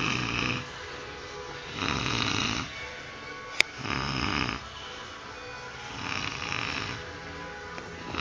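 A person snoring in their sleep: four rasping snores, one about every two seconds, with a single sharp click between the second and third.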